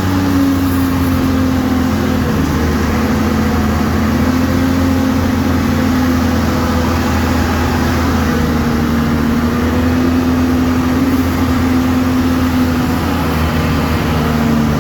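Diesel engine of a Morooka tracked carrier running steadily under load, a deep continuous drone whose pitch drifts gently up and down.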